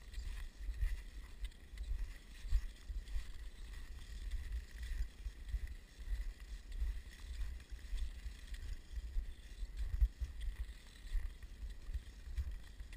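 Uneven low wind rumble buffeting the microphone, with a faint hiss of skis gliding over snow.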